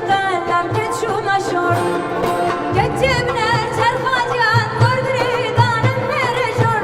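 Kurdish folk music performed live: an ornamented melody with wide vibrato over low drum beats, with singing.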